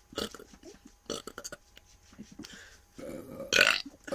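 A person belching: a few short sounds, then a longer burp about three seconds in that ends in the loudest one.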